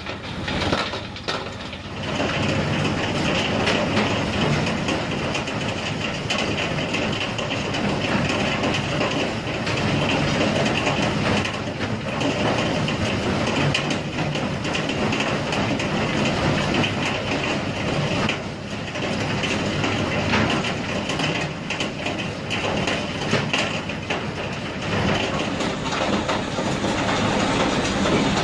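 Jaw crusher running in a rock-crushing plant: a loud, continuous mechanical din with irregular clattering of stone being broken.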